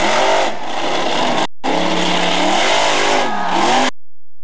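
Grave Digger monster truck's engine revving hard, its pitch swinging up and down again and again. The sound cuts out completely for a moment about a second and a half in and again near the end.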